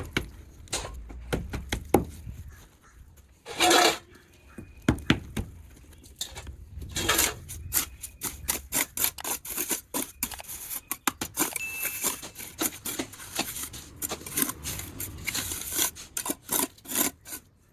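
Irregular knocking, tapping and scraping of hand tools at work on stair construction: many short sharp strikes, with a longer scrape about three and a half seconds in.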